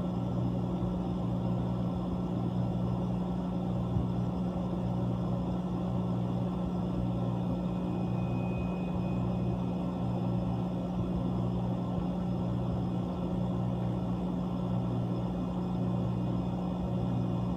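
Whirlpool ice machine's refrigeration compressor running with a steady low hum.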